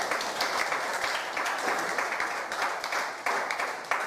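Small audience applauding, with dense, irregular hand clapping.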